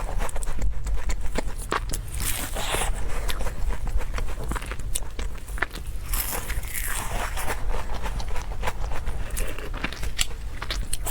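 A person eating: bites and chewing with many small irregular clicks and crunches.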